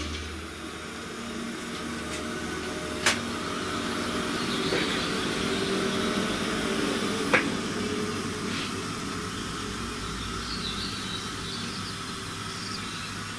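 Steady low room hum with two short sharp clicks, about three seconds in and again about seven seconds in.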